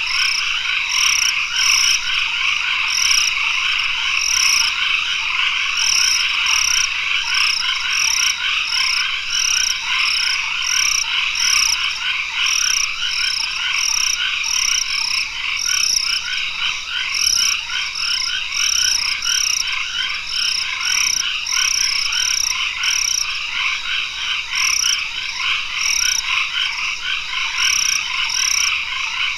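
Tropical forest dusk chorus of frogs calling: a dense, continuous mass of overlapping trilling calls, with a short high-pitched note repeated roughly once a second over it.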